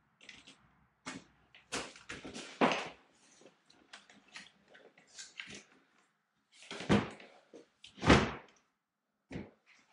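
A new window unit bumped and shifted by hand in its rough opening: a run of irregular knocks and thumps with scuffing between, the loudest about three seconds in and twice more near the end.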